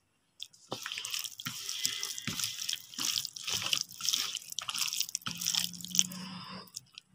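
A hand squishing and rubbing raw fish pieces in a sticky masala of chilli powder and rice flour with a little oil, mixing in a bowl. The wet, irregular strokes start about half a second in and die away just before the end.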